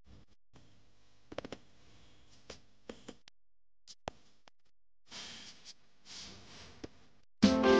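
Mostly faint: a handful of sharp clicks and two soft rustles, then background piano music starts abruptly near the end.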